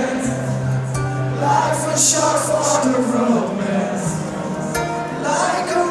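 Live acoustic performance of a rock ballad: an acoustic guitar played under a sung melody of held, gliding notes, with a sustained low note through the first half.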